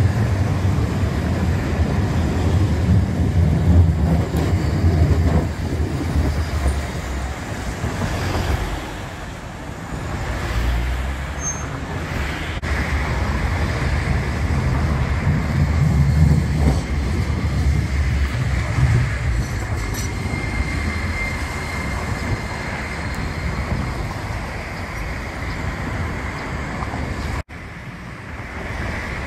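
Street traffic at a city tram crossing: a city streetcar rumbles past on its rails at the start, followed by cars passing, with a second stretch of low rumble partway through.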